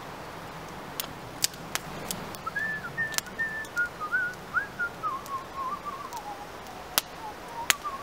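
A man whistling a wandering tune that he is making up, starting about two seconds in. A wood fire crackles with sharp pops, several in the first two seconds and two more near the end.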